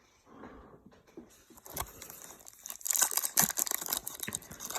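Plastic foil wrapper of a trading-card pack crinkling and tearing as it is opened, a dense crackle that starts about two seconds in and grows louder toward the end.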